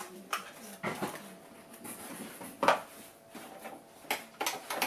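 Handling noises: a few light knocks and clicks of small plastic and cardboard items being set down and touched on a table. The loudest knock comes about two and a half seconds in, with a quick cluster of taps near the end.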